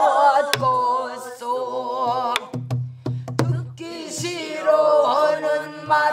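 Pansori singing: a female teacher and a group of students singing together in wavering, heavily ornamented voices. A few sharp strokes on buk barrel drums mark the rhythm.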